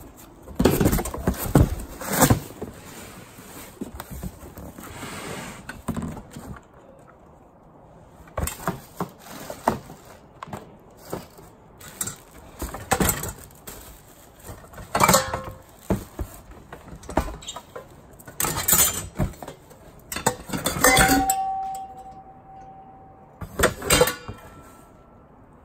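Kitchenware being rummaged in a cardboard box: stainless steel pots, lids and plastic containers knocking and clinking against each other in irregular bursts. Near the end a clear ringing tone holds for about two seconds.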